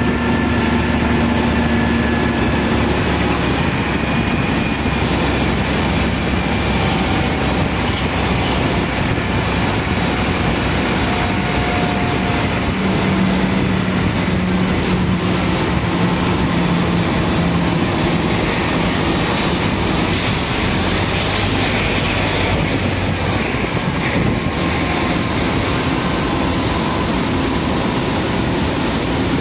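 Steady loud machinery noise of a Boeing 777-300ER being towed by a towbar tractor, with a few engine hums coming and going.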